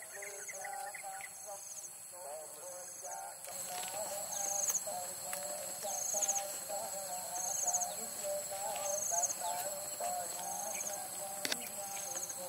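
Insects chirping in short pulses about every second and a half, over a steady wavering warble lower in pitch. The background gets noisier about three and a half seconds in.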